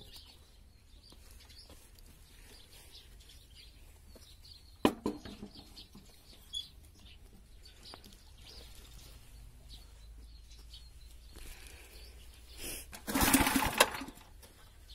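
A motor cultivator's small petrol engine being pull-started: a loud rattling turn-over on the recoil starter, under a second long, near the end. Before it, a low background with faint birdsong and a couple of knocks from work on the machine.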